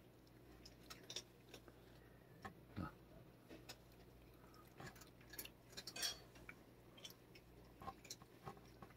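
A cat licking food off a plastic feeding tip: faint, irregular wet clicks of its tongue.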